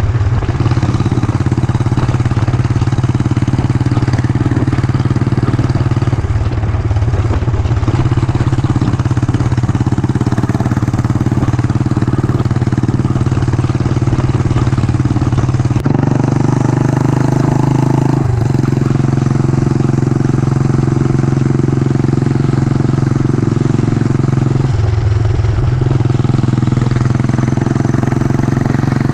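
Yamaha SR400's single-cylinder engine running under way on the road, its note changing several times as the ride goes on.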